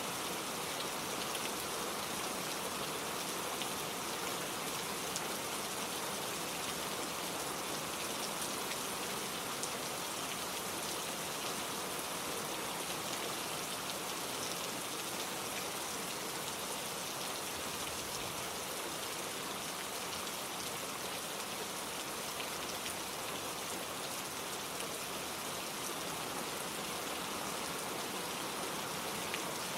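Gentle steady rain falling, an even hiss of many small drops with faint scattered patters and no thunder.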